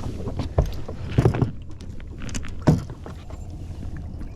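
A few dull knocks and thumps against a fishing boat, about four strokes, as a just-caught bass is brought aboard and handled, over a steady low rumble.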